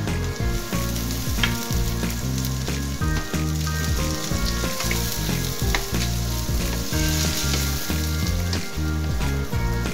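Pork belly cubes with garlic and sliced onion sizzling and frying in a pan, stirred with a wooden spatula, over background music with a moving bass line.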